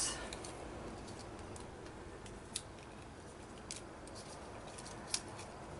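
Light clicks and taps of small paper craft pieces being handled and set down on a table, a few sharp ones scattered a second or so apart over quiet room tone, the sharpest about five seconds in.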